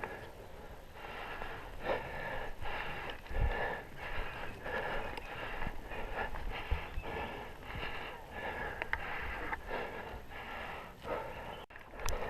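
A person's heavy breathing, one breath after another in a loose rhythm, with a few soft low thumps.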